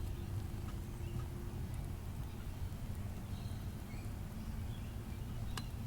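Steady low electrical buzz from a Zoom H4n field recorder's faulty recording, with a few faint, scattered clicks over it.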